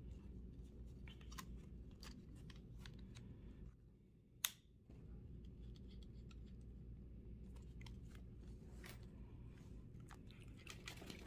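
Faint handling noise of a nylon backpack strap and a plastic camera mount being worked by hand: small scattered clicks and rustles over a steady low hum. One sharp click about four and a half seconds in.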